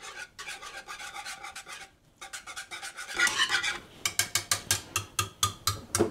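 Wire whisk beating egg yolks and butter into thickened lemon filling in a saucepan, scraping and clicking against the pan in quick rhythmic strokes. The strokes pause briefly about two seconds in, then come back louder and faster, about five a second.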